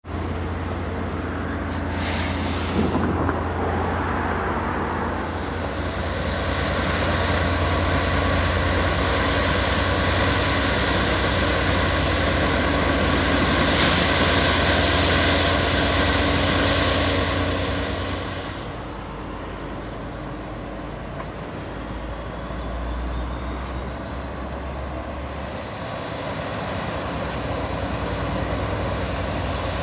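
Diesel engines of a Jordan spreader, powered by a Detroit Diesel, and the Canadian Pacific SD30C-ECO locomotive pushing it, running steadily as the spreader plows dirt along the track. The sound grows louder as the machine comes close, then drops off about two-thirds of the way through.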